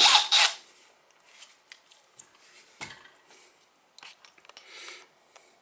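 Faint handling noises of a cordless tool being held and moved: scattered small clicks and rubbing, with one duller knock about three seconds in.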